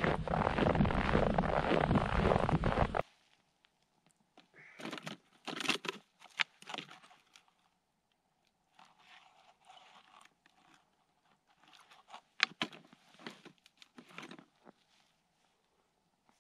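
Footsteps crunching through snow on the ice for about three seconds, stopping abruptly. Then quieter scattered clicks, crinkles and rustles of hands working at a cut-down plastic water bottle and fishing tackle.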